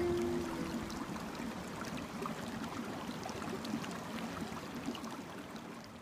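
Running water of a stream, a steady rushing hiss with faint trickling ticks, slowly fading out. At the start the last guitar note still rings on for about a second.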